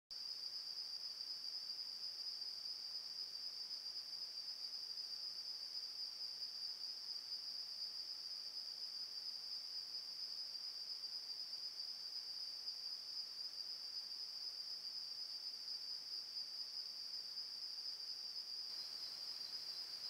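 Night insects in a steady, high-pitched chorus that flutters slightly in level; a second, slightly lower-pitched trill joins near the end.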